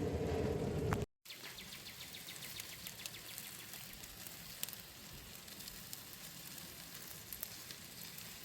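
A louder, steady low hum for about the first second, cut off sharply. Then faint, continuous sizzling and fine crackling from the whole wild hog cooking on the smoker.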